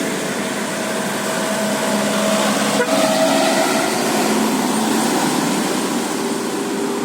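A bus's telolet basuri multi-tone horn sounding long held notes over engine and street noise.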